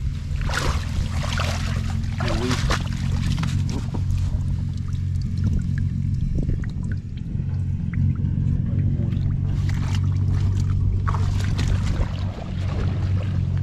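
A steady low hum under bursts of water splashing and sloshing as a woven bamboo basket is worked in shallow pond water, once a second or two in and again past the middle.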